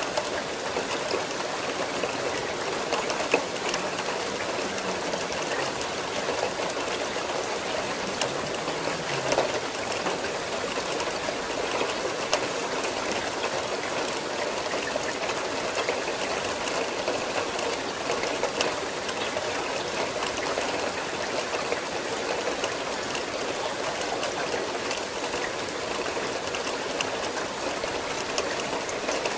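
Steady rain falling, a continuous hiss scattered with the ticks of individual drops. A couple of louder drops stand out, one about three seconds in and one about nine seconds in.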